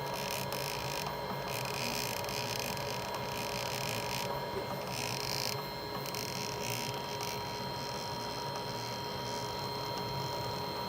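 A steady hum holding several constant tones, with a hiss that swells and fades in the upper range during the first half.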